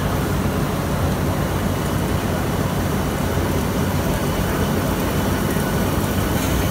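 Rotary textile-printing machine running: a steady, unbroken low hum and rumble with a constant hiss over it.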